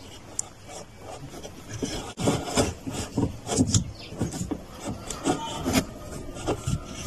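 Rubber drive belt being worked by hand onto a washing machine's motor pulley: irregular rubbing and scraping strokes.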